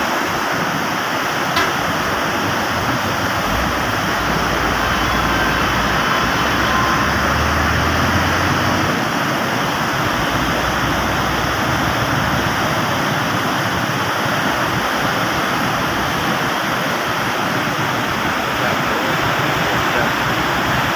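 Steady rushing of a river in flood, carrying about 150,000 cusecs of floodwater.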